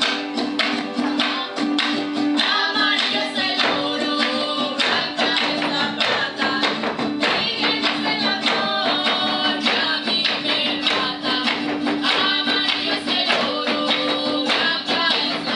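Zapateado footwork on a hollow wooden tarima, a rapid, unbroken stream of foot strikes, over a Guerrero son de tarima. The music runs throughout, and a singing voice comes in twice.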